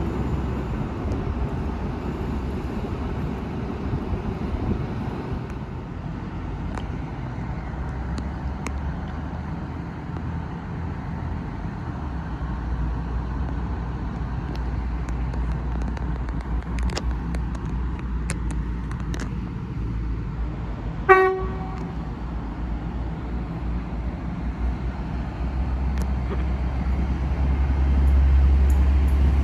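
Low, steady engine rumble of a train at a station platform, with one short horn toot about two-thirds of the way through. The rumble swells near the end as a train gets under way.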